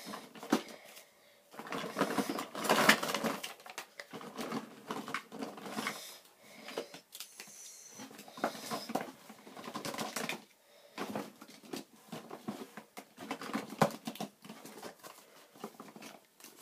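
Paper collector's lists and small blind-bag packets rustling and crinkling as they are handled and sorted, with irregular taps and clicks.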